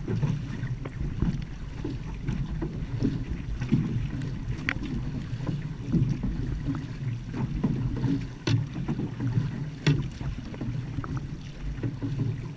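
Outrigger canoe (va'a) under paddle: water splashing and sloshing along the hull over a steady low wind rumble on the microphone, with a few sharp knocks.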